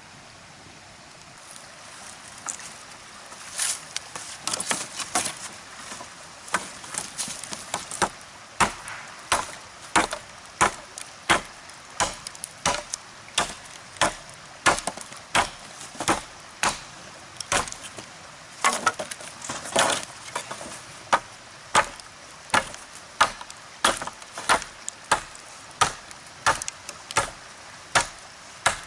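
Axe chopping wood in repeated sharp strikes. The blows come irregularly at first, then settle into a steady rhythm of nearly two a second from about eight seconds in.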